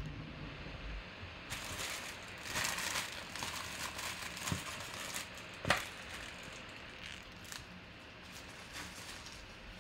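Crinkling and rustling of card-pack wrappers and packaging being handled and crumpled, with a sharp click about four and a half seconds in and a louder one near six seconds; quieter after that.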